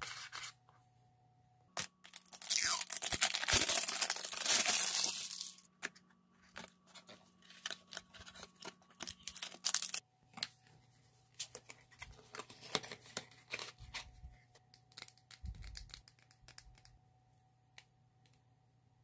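Cardboard makeup packaging being opened by hand. About two seconds in comes a loud tearing that lasts several seconds, then a run of scattered light taps, clicks and paper rustles as the box's card flaps are unfolded and handled.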